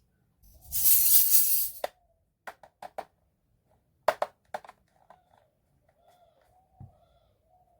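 Small plastic toy kitchen pieces and packaging being handled: a rustling, shaking sound for about a second and a half, then a run of sharp plastic clicks and taps, with a cluster about four seconds in.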